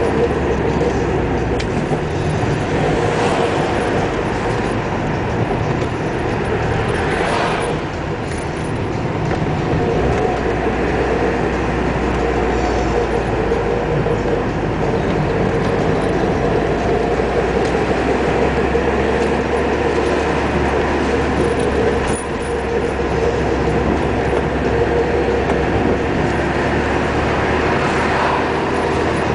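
A car driving along a road: steady engine drone and tyre noise at an even cruising pace, with brief swells and dips in level.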